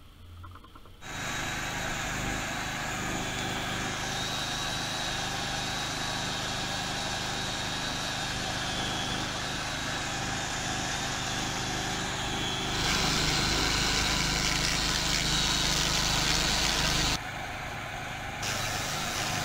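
Portable petrol generator running steadily with an even engine hum. For about four seconds in the second half, a louder hissing noise joins it.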